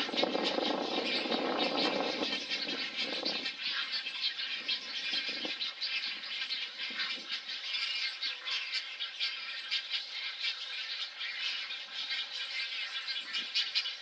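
Great egret rookery: harsh, low croaking from squabbling great egrets for the first three or four seconds, over a dense, continuous rattling and clicking chatter from the colony.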